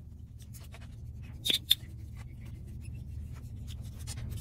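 Hex driver turning the steering servo's mounting screws out of the aluminium axle, with faint metal ticks and scrapes and two sharper clicks about one and a half seconds in, over a steady low hum.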